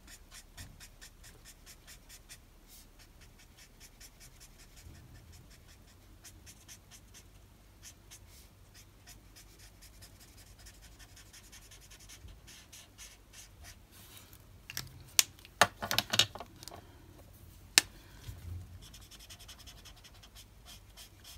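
Ohuhu alcohol marker nib stroking over white card, a faint quick scratching that runs on stroke after stroke as the piece is coloured in. A few sharp clicks stand out, loudest, about three-quarters of the way through.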